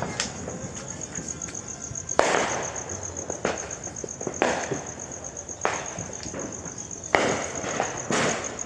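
Firecrackers going off, about six sharp bangs roughly a second apart, each with a short echo. A steady, high-pitched pulsing buzz runs underneath.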